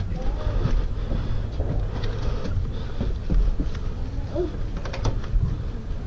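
Uneven low rumble of wind and handling noise on a body-worn action camera's microphone, with a few faint ticks and a brief faint distant voice about four seconds in.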